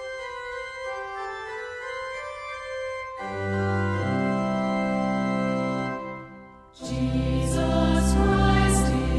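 Church organ playing sustained chords. Bass notes come in about three seconds in, the sound dips briefly, and a louder, fuller passage starts near seven seconds.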